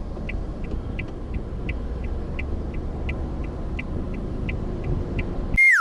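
Car turn-signal indicator clicking at about three ticks a second, alternating stronger and weaker, over a steady low engine and road rumble. Near the end the sound cuts off abruptly, and a bright ringing chime sweeps down in pitch.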